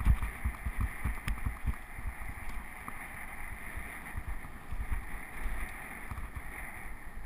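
Wind buffeting the microphone of a handlebar-mounted camera on a mountain bike rolling over a rough gravel track, with tyre rumble and a couple of sharp rattles near the start.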